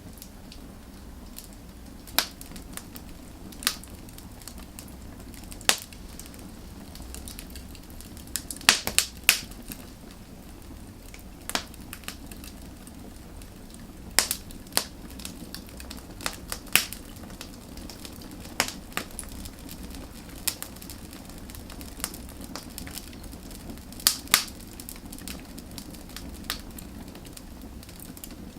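Wood fire burning: a steady low rush of flame under irregular sharp crackles and pops from the burning logs, coming in small clusters.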